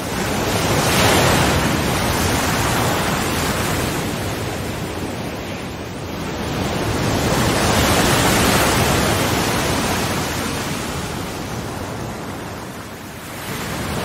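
Sea waves washing on a shore, the rushing noise swelling and fading in slow surges about every seven seconds.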